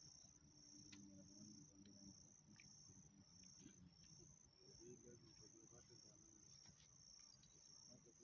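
Faint, high-pitched insect chirping, pulsing about twice a second.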